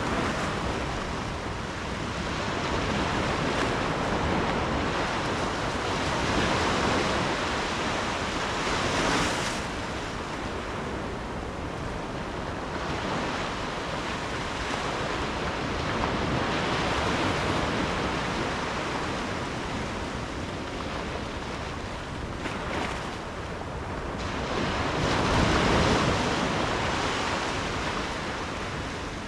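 Ocean waves breaking and washing ashore, a steady rush that swells and fades every several seconds, loudest about a third of the way in and again near the end, with some wind on the microphone.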